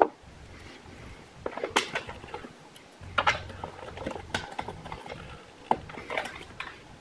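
Small metal clicks and clinks of bolts and a battery hold-down bracket being handled and threaded in by hand, in scattered taps about a second apart.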